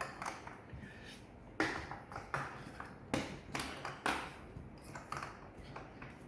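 Handling noise from assembling a kids' ride-on toy car: a string of irregular sharp taps and clicks of tools and plastic and metal parts being handled, about six of them spread over several seconds.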